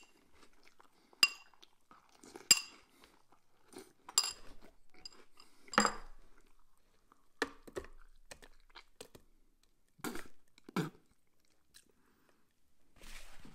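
A spoon clinks three times against a ceramic cereal bowl, then a mouthful of soggy Peeps cereal in almond milk is chewed in short bursts. Near the end it is spat out into a plastic spit bucket.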